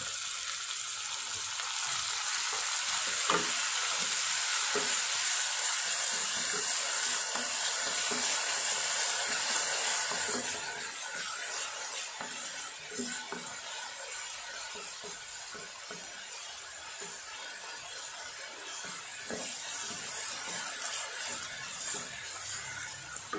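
Chopped onion sizzling in hot ghee in a kadhai, stirred and scraped with a wooden spatula, with a few light knocks of the spatula against the pan. The sizzle is strongest at first and drops to a softer frying hiss about ten seconds in.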